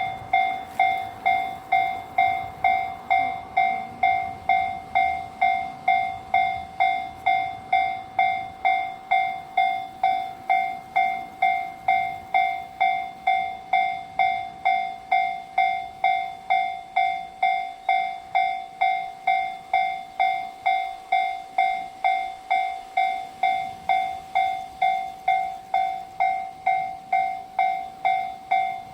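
Japanese railway level-crossing warning bell, an electronic ding struck over and over at an even pace of a little under two strikes a second, each ring fading quickly. It signals that the crossing is closed for an approaching train.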